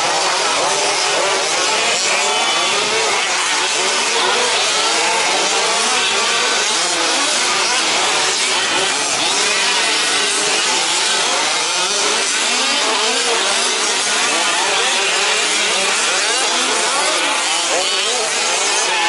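Several 1/5-scale petrol RC trucks racing together, their small two-stroke engines revving up and down with many buzzing engine notes rising and falling over one another.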